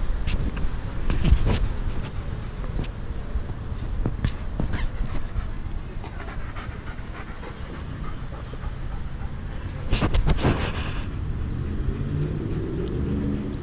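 German Shepherd / Belgian Malinois mix puppies panting and scuffling at play, with scattered light knocks and a louder rustle about ten seconds in. A low pitched sound comes in near the end.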